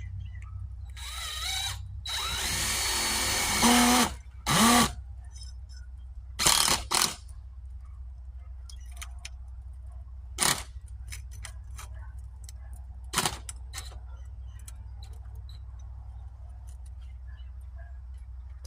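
Craftsman 20-volt cordless drill driving roofing screws: a short spin-up, a steady run of about two seconds, then several short trigger pulls to snug the screws down, followed by scattered faint clicks.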